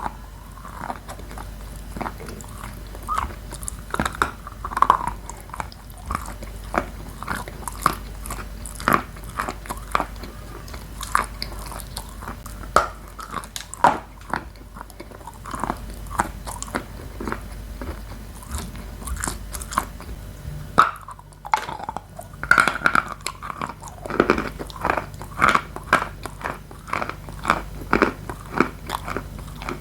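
Close-up biting and chewing of dry edible chalk and clay, a run of sharp, irregular crunches several a second, with a brief lull about two-thirds of the way through.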